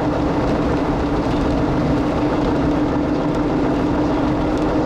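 Car driving along a road, heard from inside the cabin: steady road and wind noise with a constant hum.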